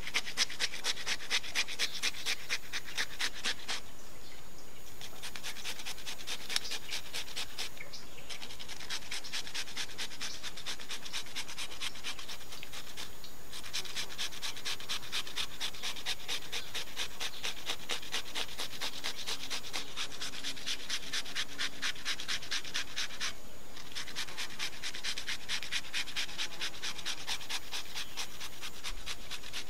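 Cucumber being grated by hand: rapid, even rasping strokes, broken by a few short pauses.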